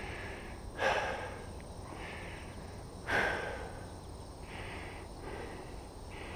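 A man breathing out hard twice, short and sharp, about a second in and again after three seconds, over a faint hiss that comes and goes.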